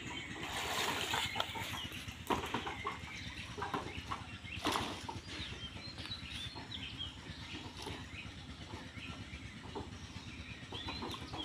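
Water sloshing and splashing as a man wades through a pond pushing a corrugated tin sheet, with a couple of sharper splashes. Chickens cluck and small birds chirp throughout.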